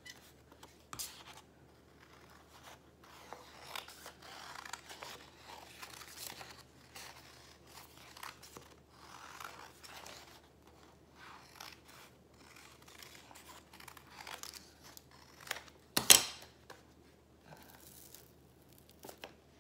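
Scissors snipping through folded paper in a long, irregular run of short cuts, with the paper rustling as it is turned. About three and a half seconds before the end comes one sharp clack, the loudest sound, as the metal scissors are set down on the granite counter.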